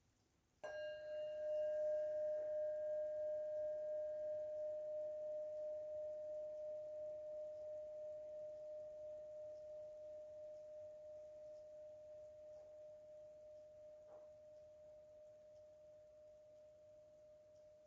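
A singing bowl is struck once about half a second in. It rings one clear, steady tone, and its higher overtones fade within a few seconds. The ring dies away slowly with a gentle waver in loudness.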